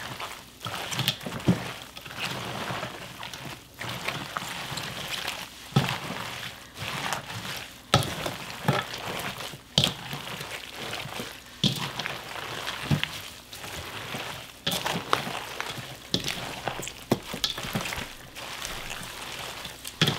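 Gloved hands tossing young radish and napa cabbage kimchi in a runny chili seasoning in a stainless steel bowl: continuous wet squelching and rustling of leaves, with irregular sharp clicks.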